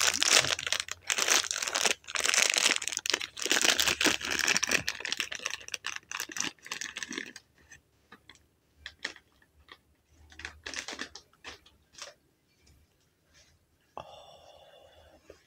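Plastic bag crinkling and rustling loudly for about seven seconds as a croissant is unwrapped, followed by fainter scattered crackles.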